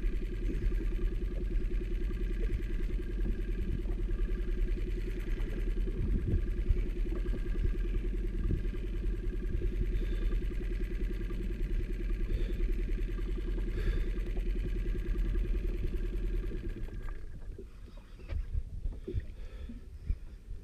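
Outboard motor running steadily at low speed, cutting out about seventeen seconds in, after which only scattered knocks remain.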